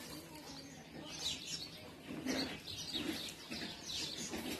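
Small birds chirping: scattered short, high calls that come in clusters about a second in and again near the end.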